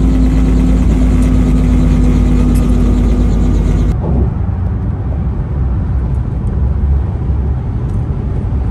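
Helicopter engine and rotor drone heard from inside the cabin, a loud steady hum with a few held tones. About four seconds in it cuts off abruptly to the lower rumble and tyre noise of a car driving on a highway, heard from inside the car.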